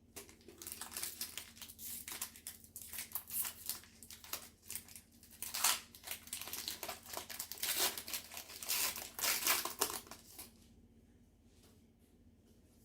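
Foil booster pack wrapper of Pokémon trading cards crinkling and tearing as it is opened, for about ten seconds, then stopping and leaving a few faint clicks.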